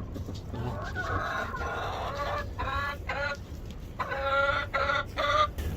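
Chickens clucking and calling loudly in a series of repeated squawks, with wind rumbling on the microphone underneath.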